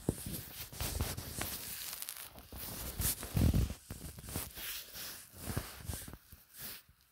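Close handling noise of a phone being balanced on a pole: a run of knocks, clicks and rustles, with a dull thump about three seconds in.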